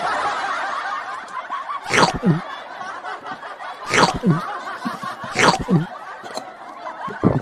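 Snickering laughter: a busy giggling background with three sharp bursts about two, four and five and a half seconds in, each trailing off into a falling tone.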